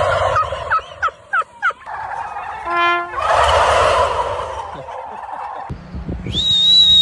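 Turkeys gobbling in rattling bursts. A short pitched honk sounds about three seconds in, and a high, thin, steady whistle-like tone comes in near the end.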